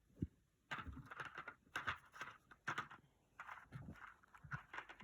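Small 3D-printed plastic model parts being handled and fitted together by hand: a single knock, then an irregular run of light clicks and rustles.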